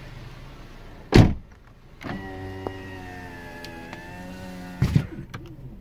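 Power window motor of a 2007 Toyota Corolla LE running for about three seconds, a steady whine that ends in a clunk as the glass reaches its stop. A single loud knock comes about a second in, before the motor starts.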